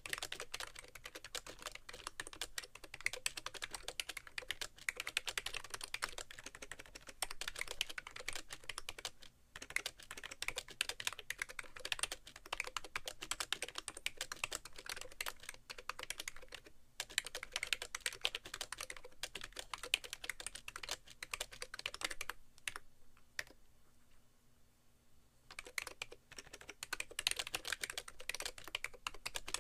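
Fast typing on a BTC 5100c mini keyboard with slider-over-rubber-dome keys, a rapid run of keystroke clacks with the keyboard resting on a bare keyboard tray. The typing breaks off briefly a couple of times and stops for about two seconds late on before picking up again.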